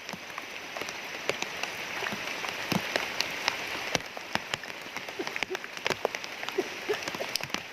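Rain falling, a steady hiss with many irregular sharp drop ticks.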